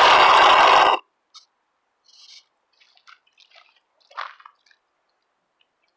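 Nitro glow engine of an RC boat running loud at high revs, cutting out abruptly about a second in. After it, only faint scattered drips and ticks.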